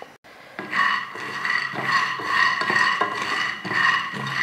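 Raw peanuts being stirred with a spatula as they dry-roast in a nonstick pan, rattling and scraping against the pan in irregular strokes. A steady high hum runs underneath.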